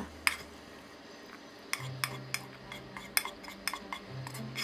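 A spatula scraping and tapping against a nonstick frying pan as stir-fried topping is scraped out into a ceramic bowl, making a scattered series of light clicks and knocks.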